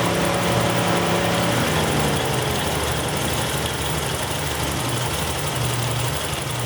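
A Buick 3300 V6 idling steadily, an engine whose Multec fuel injectors are mostly shorted, drawing too much current.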